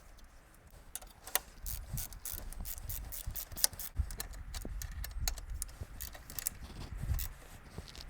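Irregular metallic clicks and clinks, several a second, of tools and caliper bolts being handled and fitted on a disc-brake caliper, over a low handling rumble.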